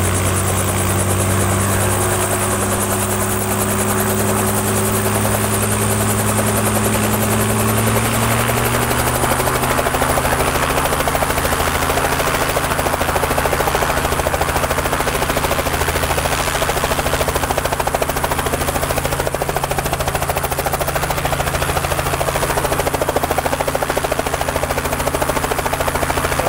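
Robinson R44 Clipper II helicopter running close by: engine and rotor, its pitch creeping up over the first several seconds, then holding steady with a low, even throb.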